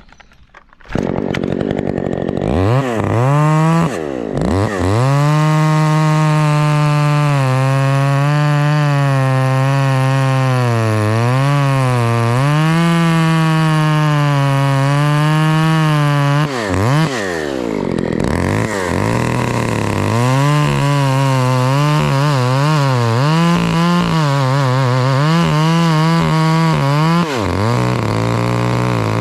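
Two-stroke chainsaw running at high revs and cutting, its engine pitch sagging and recovering under load. Twice the throttle drops off briefly and the saw revs back up.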